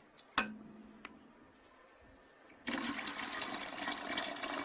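A sharp knock, then about two and a half seconds in, water poured into a cooking pot: a loud, steady splashing pour that runs on.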